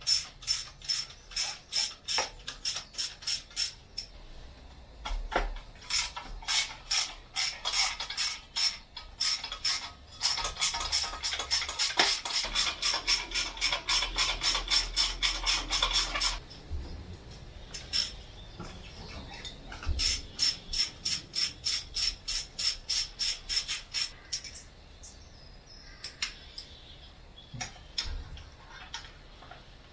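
Socket-wrench ratchet clicking in repeated runs of about three to four clicks a second, with short pauses and a faster spell in the middle, as the manifold nuts come off the A-series engine's studs.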